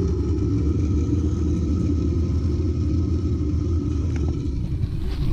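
Zip line trolley's pulley wheels rolling fast along the steel cable, a steady low rumble.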